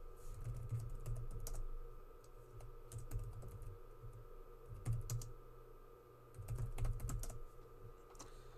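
Typing on a computer keyboard: several short runs of keystrokes as a search query is entered.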